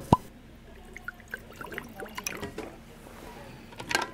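Liquid pouring and dripping from an insulated jug into an enamel mug, heard as scattered small drips and splashes, with a sharp knock just after the start and a few clicks near the end as the jug is handled.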